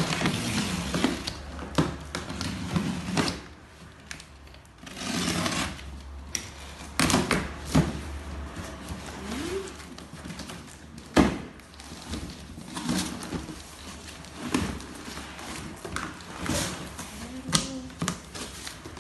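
A cardboard shipping carton being unpacked: a knife slitting the packing tape, and the flaps pulled apart and pushed open with scraping and rustling. Sharp knocks of cardboard are scattered through it, the loudest about eleven seconds in.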